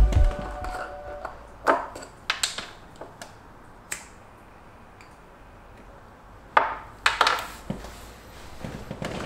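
Small handling sounds of a glass jar candle being opened and lit with a lighter: scattered clicks and scrapes, then a short cluster of knocks on a wooden tabletop about two thirds of the way in.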